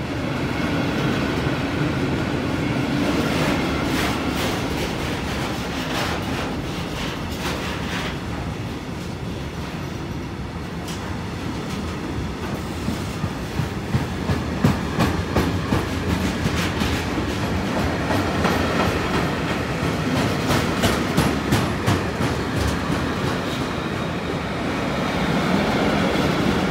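Container freight wagons rolling past at close range, with steady wheel-on-rail rumble and rhythmic clickety-clack knocks as the wheelsets cross rail joints. The knocks come thickest in the middle stretch, and a steadier low rumble takes over near the end.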